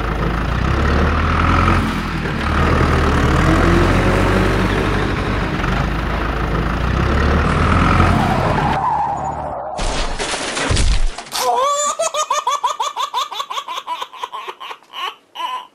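A low, steady vehicle engine rumble for about nine seconds, then a short noisy burst, then a run of quick, rapid laughs through the last few seconds.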